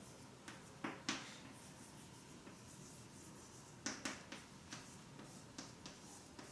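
Handwriting: a series of short, sharp scratching strokes and taps of a pen or marker. The loudest come about a second in and again around four seconds in.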